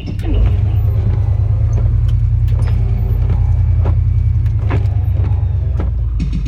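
2017 Chevy pickup truck's engine running, a loud, steady low drone, with a few faint clicks over it.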